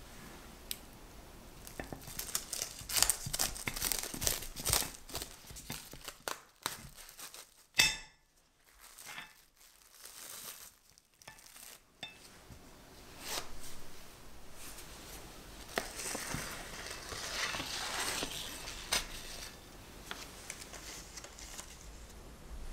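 Crinkling of a clear plastic cake film and light clinks of a stainless steel cake ring against a ceramic plate as the cake is handled. There is one sharp click about eight seconds in.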